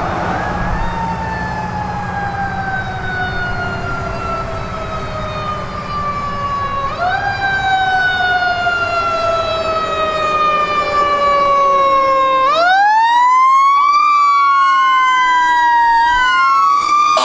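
Aerial ladder fire truck's siren wailing. It rises quickly and falls slowly in pitch, twice, then about twelve seconds in a second siren tone joins and sweeps up and down across it. The sirens grow louder as the truck approaches, over road rumble from passing traffic in the first few seconds.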